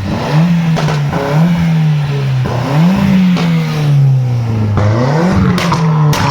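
Car engine revving up and down, its note climbing and falling several times, with a few sharp cracks near the end.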